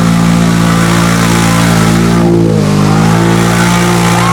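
Off-road vehicle's engine revved hard and held at high revs, dipping briefly about halfway through, then climbing straight back up.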